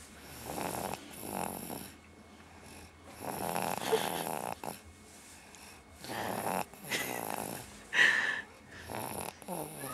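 A baby snoring, a rasping snore on the breaths about every two to three seconds, with a sharper, higher snort near the end.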